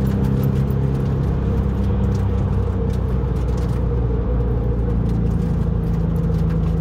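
Porsche 911 (996) flat-six engine running at a steady cruise, with tyre and road noise.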